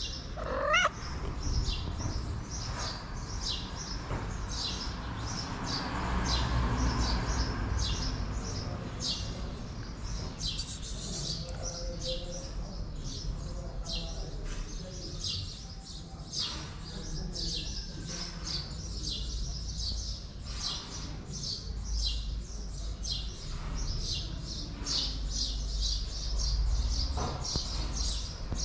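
A tabby-and-white street cat gives one rising meow about a second in, asking for food. Small birds chirp rapidly and continuously around it, over a low rumble.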